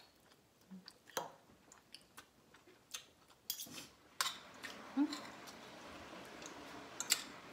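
Cutlery clicking and tapping against plates and bowls, several separate strikes, with eating sounds. A faint steady hiss sets in about four seconds in.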